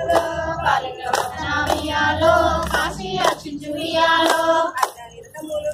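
Group of women singing a Telugu Bathukamma folk song in chorus, with regular hand claps keeping the beat.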